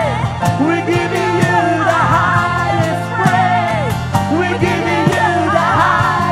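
A slow worship song: a man singing with acoustic guitar strumming and steady low notes underneath.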